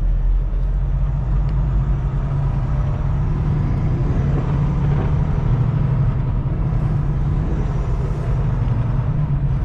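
Diesel engine of a Kenworth T680 semi truck running at low speed while manoeuvring, a steady low drone heard from inside the cab.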